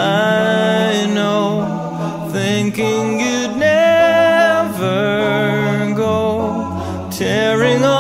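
Soundtrack song: several singing voices hold long notes in harmony, choir-like, with no clear words. The chord changes every second or so.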